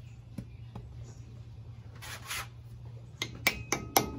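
A brief scrape about two seconds in as the metal dust cap is pushed onto the front wheel hub. Then, near the end, a hammer starts tapping the cap into place: quick, sharp metal taps, about four a second.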